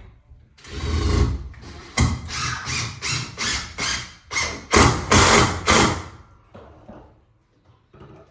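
Cordless drill driving screws into the wooden frame in about ten short trigger bursts, each a fraction of a second long.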